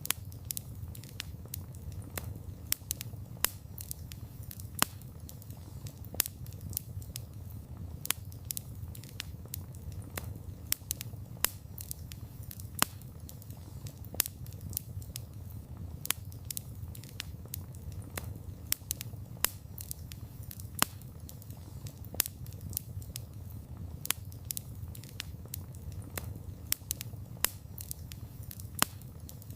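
Wood fire crackling with a steady low rumble of burning and frequent sharp, irregular pops and snaps from the burning wood.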